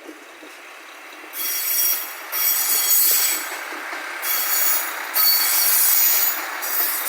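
A train passing close by, its wheels squealing in high-pitched stretches that begin about a second and a half in and come and go every second or two.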